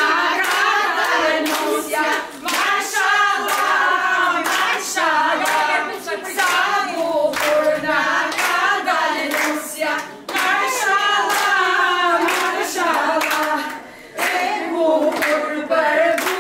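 A group of women singing a traditional wedding song together, with hands clapping along.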